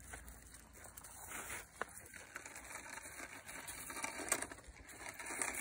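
Faint, scattered crunching and clicking on loose gravel, with one sharp click a little under two seconds in.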